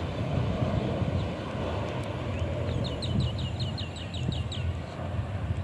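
A steady low outdoor rumble throughout. Near the middle a bird calls a quick run of about ten short, high, falling notes, about five a second, lasting about two seconds.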